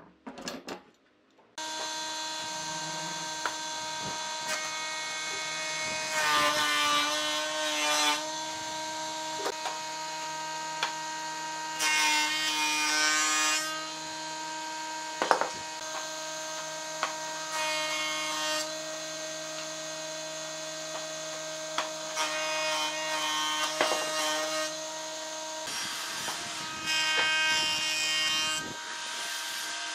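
Planer-thicknesser running with a steady motor whine. Five times it gets louder and harsher as its knives bite into a glued-up softwood block on each pass through the thicknessing bed.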